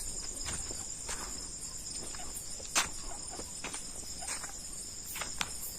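A steady chorus of crickets trilling at night, with scattered light ticks and one sharper click about halfway through.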